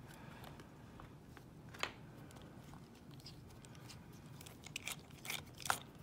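A small screwdriver turning screws out of an Abus oval padlock's body: faint scratchy metal clicks, one about two seconds in, then a quicker run of them in the last second and a half.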